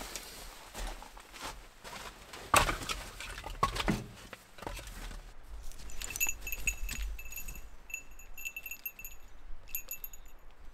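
Irregular crunches and knocks, then from about halfway a small bell on a dog's collar jingling in quick, irregular light rings as the dog moves about in the snow.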